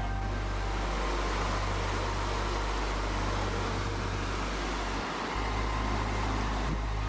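Shallow stream flowing over stones, a steady rushing noise with a constant low rumble underneath.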